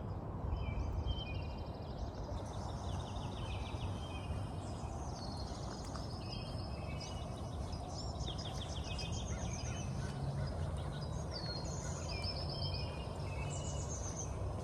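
Several songbirds chirping and singing in overlapping trilled and chirped phrases over a steady low background rumble.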